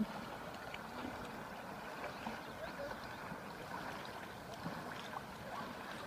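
Slow river water lapping and trickling softly around floating tubes, with scattered small drips and splashes. There is a short click right at the start.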